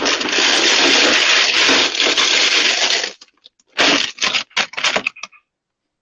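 Plastic frozen-food packaging rustling and crinkling close to the microphone, a dense crackle that breaks up about three seconds in into a few separate crinkles and clicks, then the audio drops out completely near the end.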